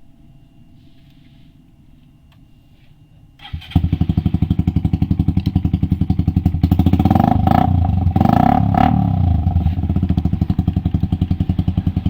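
Suzuki Raider 150 carb motorcycle engine, a single-cylinder four-stroke breathing through an open-pipe exhaust, starts about three and a half seconds in and idles with a fast, even exhaust beat. It is blipped up twice in a row a few seconds later, then drops back to idle.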